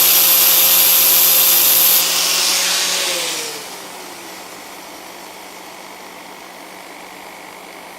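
Stainless steel bolt spinning in a power drill and ground against an angle grinder's flap disc; about two seconds in the grinding stops and a motor winds down with falling pitch. A quieter steady motor hum, the power drill still running, carries on after.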